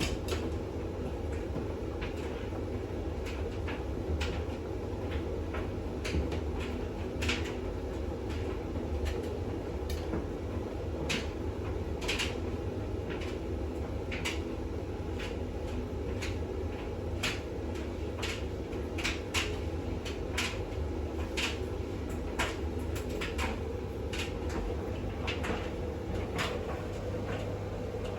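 Bosch WAX32GH1 front-loading washing machine on its final rinse with a full load: a steady motor and drum hum, with irregular clicks and knocks as the laundry tumbles in the drum.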